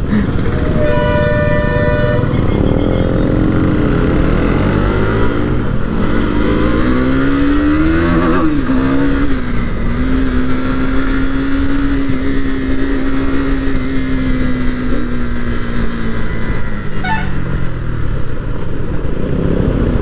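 KTM motorcycle engine under way over a steady low rush of wind. A horn sounds for about a second near the start. The engine note then rises, holds steady for several seconds and falls away.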